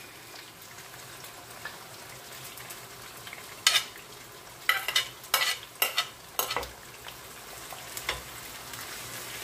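Onion and sliced peppers frying in a pan with a steady sizzle. A metal spoon clinks and scrapes sharply on a plate several times around the middle as chopped tomato is pushed into the pan.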